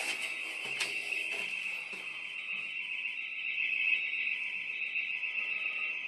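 House burglar alarm siren sounding a steady, continuous high-pitched tone, set off and left ringing.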